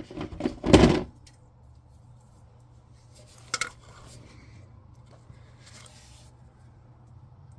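A loud clatter of metal tools and parts being handled in the first second, then a single sharp click a few seconds later, over a faint steady low hum.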